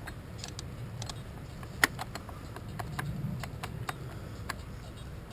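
Metal parts of a dismantled electric sailboat winch clicking and clinking as the gear and shaft assembly is handled and fitted together, a dozen or so separate clicks with one sharp click about two seconds in, over a low rumble.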